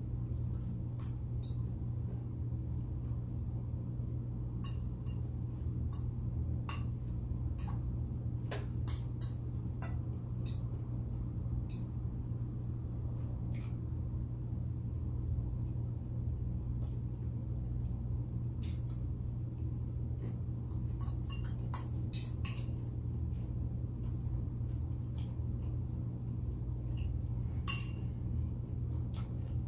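Cutlery clicking against a plate in scattered, irregular taps, with a denser run of clicks about three-quarters of the way through, over a steady low hum.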